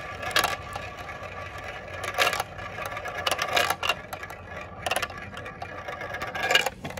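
Glass marbles rolling and circling around a plastic marble-run funnel with a steady whirring rattle, punctuated by sharp clacks as marbles knock together and drop through the hole into the track below.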